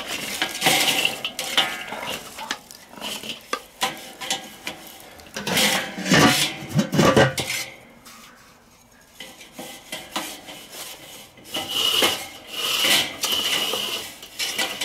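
Charcoal briquettes being pushed around inside a Weber charcoal kettle grill, clinking and scraping against each other and the metal bowl as they are banked to one side. About six seconds in there is a louder clatter as the enamelled lid goes on, then more clinks and scrapes as the vents are closed down.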